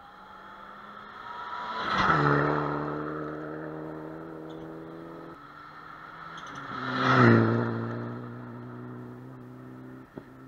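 Two rally cars race past one after the other on a gravel special stage, their engines at high revs. Each engine rises in pitch as it approaches, then drops sharply as it passes, about two seconds in and again about seven seconds in. The second pass is the louder.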